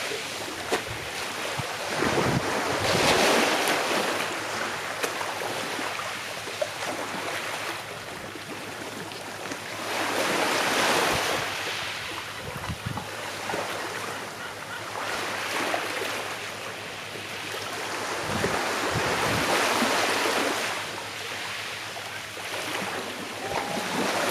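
Small sea waves washing onto a shore, the surf swelling and fading every few seconds.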